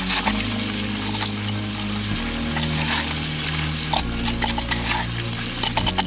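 Wet concrete sliding and slopping out of a bucket into a form, with scattered scrapes and knocks as the bucket is tipped and shaken. Background music with sustained low notes that change about every two seconds runs underneath.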